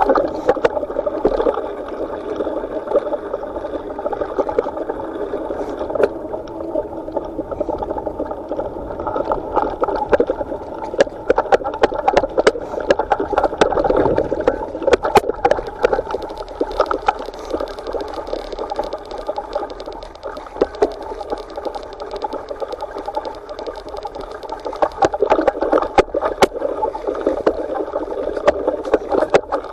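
Mountain bike riding down a dirt and leaf-covered trail: a steady rush of rolling tyres and wind, with frequent sharp knocks and rattles as the bike goes over bumps.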